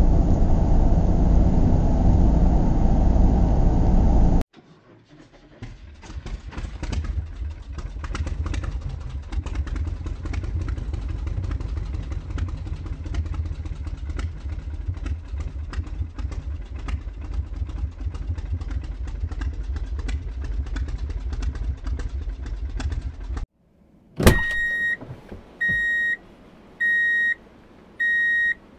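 A toy Mack truck and trailer being pushed across a plastic play mat: its plastic wheels roll with a steady rattle of fine clicks. It starts with a loud low rumble that cuts off suddenly about four seconds in, and near the end a run of steady electronic beeps, about one a second, takes over.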